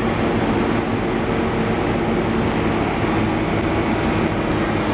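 Heavy engine running steadily at a constant speed: a loud, even, low drone.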